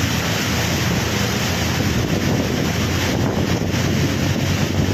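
Steady rushing noise of wind and rain, with wind buffeting the microphone.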